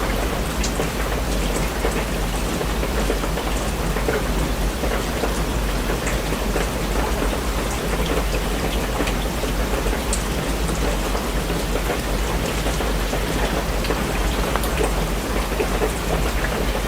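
Steady rain falling, an even hiss with scattered sharp drop ticks and a constant low rumble underneath.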